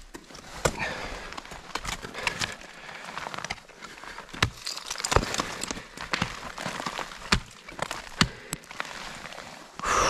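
Black Diamond ice tools and crampon front points striking the ice of a frozen waterfall: a string of sharp, irregular hits, several a second at times, the loudest about halfway through.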